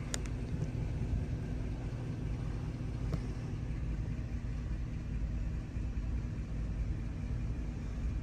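The GMC Savana 3500's 4.8-litre V8 idling steadily, heard from inside the cab, running smooth.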